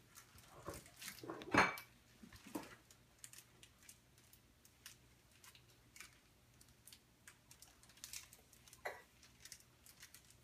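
Scattered light clicks and taps of small paint pots and a brush being handled on a kitchen counter while more brown paint is fetched, busiest in the first few seconds and sparse after.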